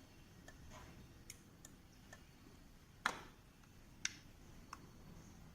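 Light plastic clicks from a handheld gate remote control being handled, scattered and irregular, with two louder clicks about a second apart a little past the middle.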